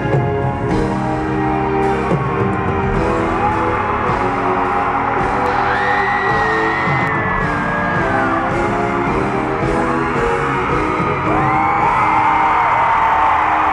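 Live arena concert music through the PA, recorded from the audience: held synth chords over a regular beat. From about three seconds in, fans scream and whoop over it.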